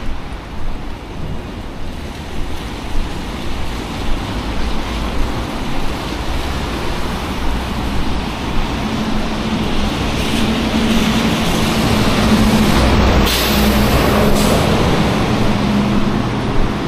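Street traffic noise swelling as a heavy road vehicle draws close. Its low engine hum comes in about halfway and holds, with a short hiss about three-quarters of the way through.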